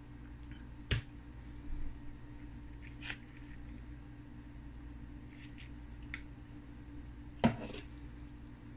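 Spoons clicking and knocking a few times against a stainless steel mixing bowl and muffin tin as batter is scooped and scraped into paper liners, the loudest knock near the end, over a steady low hum.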